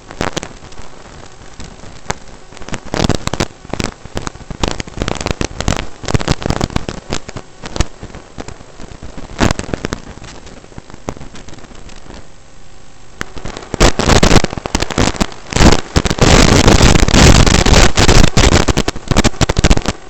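Crackling, hissing static from the audio channel of an analog FPV video link, breaking up irregularly as the radio signal fades, with scattered crackles that become loud and continuous over the last six seconds.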